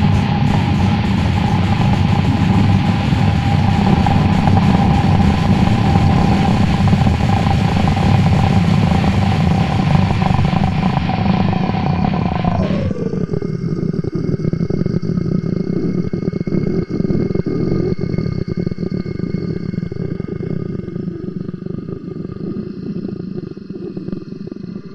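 Harsh noise music: a loud, dense wall of distorted noise under a steady high drone. About thirteen seconds in, the drone slides down in pitch and the noise thins to a rougher, sparser layer over a few held tones, fading toward the end.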